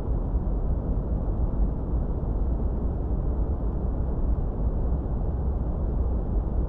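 A steady, even low rumble with no pitch or rhythm, holding one level throughout.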